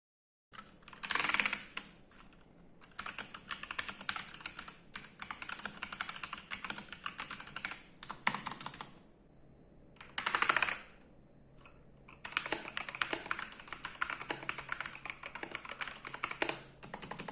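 Typing on a Machenike K500-B61 mechanical keyboard with Huano switches and PBT XDA-profile keycaps: fast runs of clacky keystrokes in two long stretches, each led by a short louder burst of keys.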